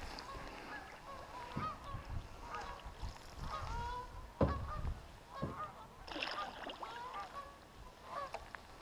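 Geese honking, faint short calls repeated on and off, with a single dull knock about four and a half seconds in.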